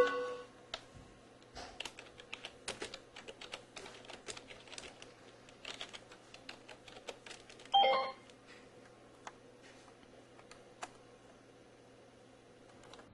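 Typing on a computer keyboard: irregular runs of keystroke clicks that die away about eleven seconds in. Two short pitched sounds stand out above the typing, one at the start and the loudest about eight seconds in.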